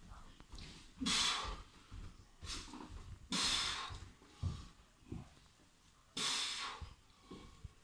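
Heavy breathing of a para kettlebell lifter pressing a 16 kg kettlebell one-handed: three loud, forceful exhales about a second long, a few seconds apart, with quieter breaths between them.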